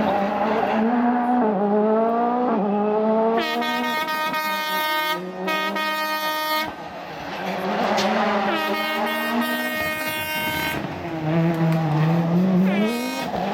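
Ford Fiesta RS WRC rally car's turbocharged four-cylinder engine driven hard, revs climbing and snapping back with quick gear changes, and dropping sharply a couple of times as it lifts off.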